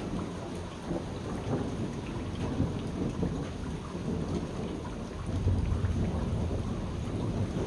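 Steady rain falling with thunder rumbling; the low rumble swells about five seconds in.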